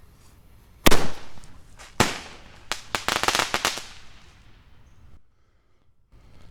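Dominator 3 Day Parachute consumer firework going off: a sharp loud bang, a second bang about a second later, then a fast run of crackling pops that dies away, the crackle effect of the shots that carry the parachutes.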